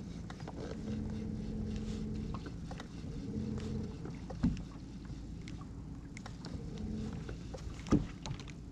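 Electric trolling motor on a bass boat humming in short spurts, switched on and off to hold position. Two sharp knocks on the boat, about halfway through and near the end, the second the loudest sound.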